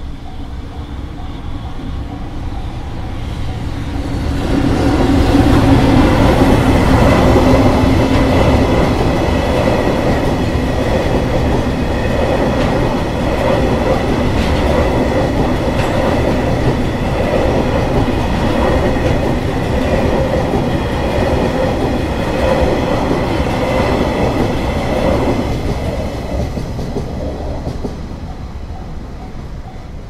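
Freight train of tank wagons passing over a level crossing: wheels clattering over the rail joints, growing loud about five seconds in, running on steadily and fading near the end. A steady tone through it, likely the crossing's alarm bell.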